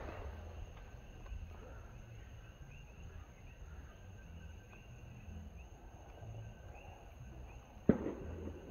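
Insects chirping steadily in the night with a low background rumble, broken by a sharp firework crack at the start and a loud single firework bang about eight seconds in.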